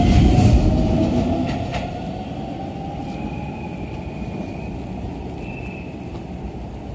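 Keisei New 3000 series electric train pulling out: wheel rumble and a rising motor whine that fade over the first two seconds, with a couple of clicks. Then a second New 3000 series train rolls in slowly, with a short high squeal twice as it brakes.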